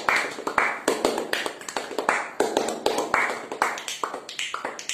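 Hands clapping and tapping a quick rhythmic beat, louder cupped-hand claps mixed with lighter taps several times a second.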